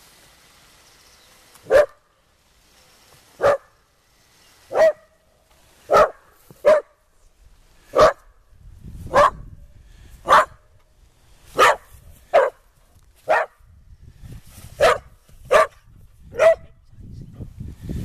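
A whippet barking in short single barks, about fourteen of them, roughly one a second.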